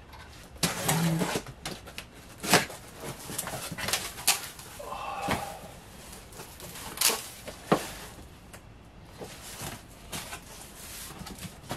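Cardboard shipping box being opened by hand: flaps pulled back and an inner box slid and lifted out, giving scraping rustles and several sharp knocks at irregular intervals.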